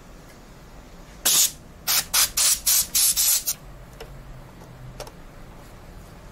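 A rapid run of short hissing sprays, about seven over two seconds, starting about a second in.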